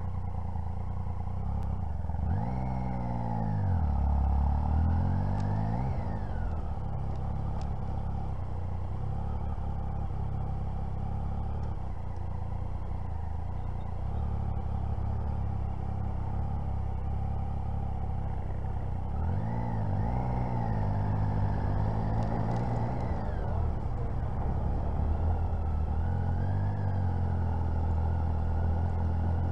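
Motorcycle engine running at low speed, its pitch swinging up and down as the throttle is opened and closed, with two bigger rises and falls about two to six seconds in and again about twenty seconds in, and a gentler one near the end.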